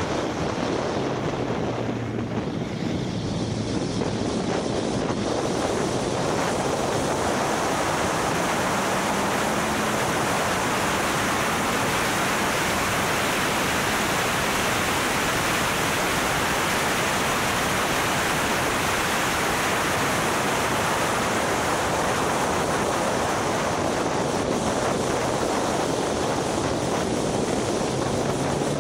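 Steady heavy wind rush on the microphone of a car at track speed, with a faint engine note underneath that rises and falls in pitch a few times.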